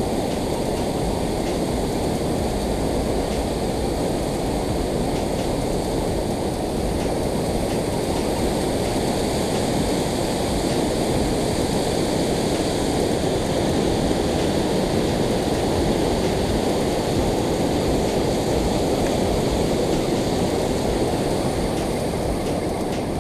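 Steady rush of water pouring over a concrete dam spillway, an even noise at a constant level.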